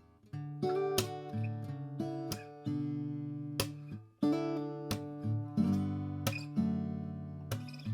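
An Atkin L36 small-bodied acoustic guitar with a Sitka spruce top, mahogany back and sides and phosphor bronze light strings is being played. Chords and picked notes ring out, beginning just after a brief pause at the start, with a short break about four seconds in.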